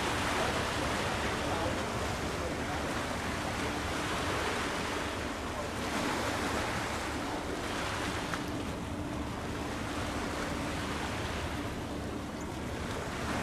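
Rushing wind and water noise, swelling and easing every few seconds, with a faint steady hum underneath.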